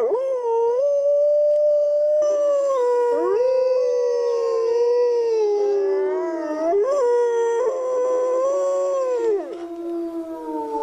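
Wolves howling in chorus: several long howls overlapping at different pitches, gliding slowly up and down, with one howl sliding down and falling away near the end.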